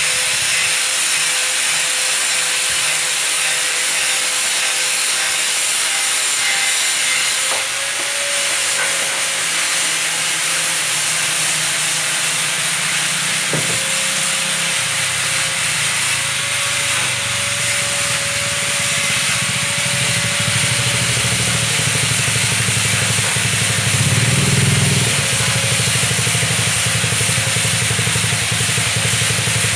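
Stone-cutting machine running steadily: a continuous loud hissing cutting noise with a steady tone under it. A lower hum joins about halfway through.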